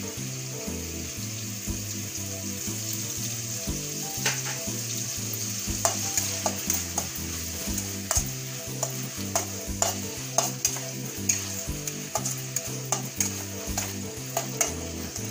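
Chopped onions sizzling in hot oil in a stainless steel kadai, being fried until brown. A steel spatula stirs and scrapes them, with many sharp clicks against the pan from about four seconds in.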